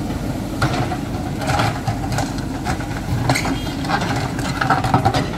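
Backhoe loader's diesel engine running steadily, with scattered sharp knocks as its bucket strikes and breaks up a concrete curb strip.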